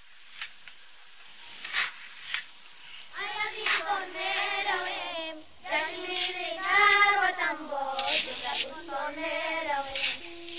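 A single high voice singing a slow, wavering melody with no clear accompaniment. It comes in about three seconds in, after a few faint clicks over hiss.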